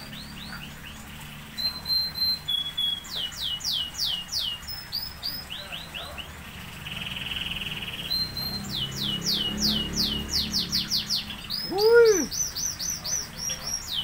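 Lovebirds chattering: quick runs of high, shrill chirps, each sweeping downward, with a short buzzy trill about halfway through. About twelve seconds in comes one louder, lower call that rises and falls.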